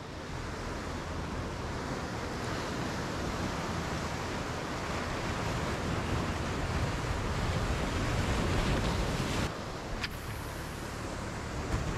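Surf washing on the shore, with wind buffeting the microphone. The rush drops away suddenly about nine and a half seconds in, and there is a brief sharp click just after.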